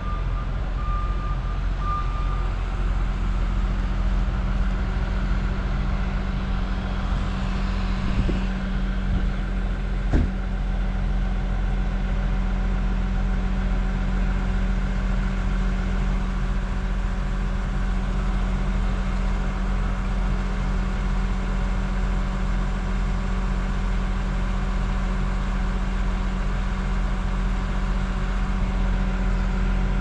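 Engine of heavy construction equipment running steadily, with a backup alarm beeping a few times near the start. A single sharp knock comes about ten seconds in.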